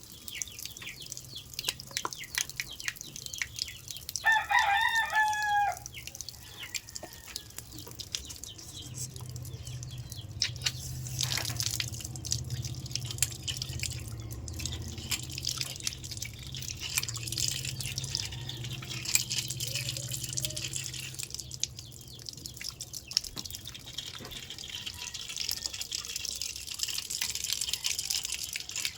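A rooster crows once, about four seconds in, over water dripping and trickling with scattered small clicks and splashes. A low steady hum runs through the middle stretch.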